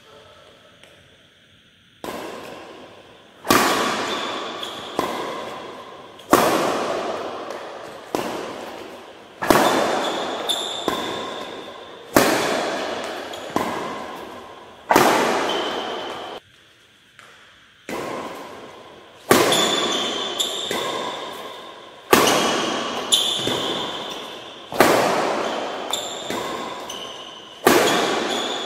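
Badminton racket hitting a shuttlecock again and again, a sharp strike about every one and a half seconds, each ringing on in a large hall.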